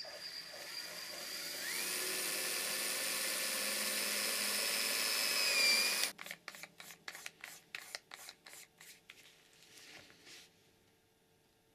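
Handheld electric drill with a wood bit boring a screw hole into a cross-country ski, its whine rising in pitch and growing louder for about six seconds before it cuts off suddenly. The top layer drills stiffly and the rest of the ski easily. A run of rapid clicks follows for several seconds.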